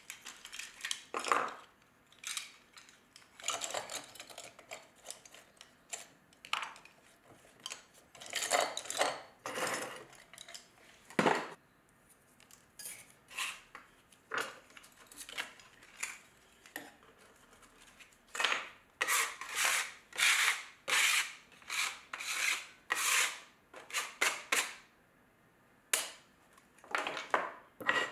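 Metal pottery trimming tools clinking as they are gathered up off a wooden workbench, then scraping and wiping strokes as clay trimmings are cleared from the bench. The strokes come singly at first, then in a quick run of about two a second through the second half.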